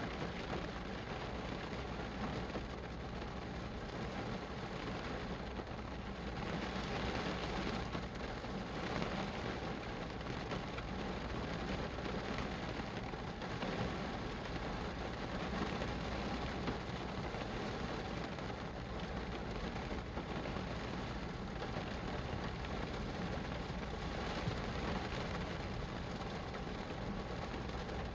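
Steady rain falling, an even hiss with gentle swells and no breaks.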